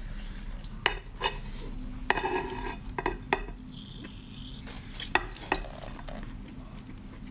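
Close-miked eating sounds: dried chili flakes rustling on a plate as a large pale food is pushed and rolled through them, with sharp clicks and mouth sounds as it is bitten and eaten.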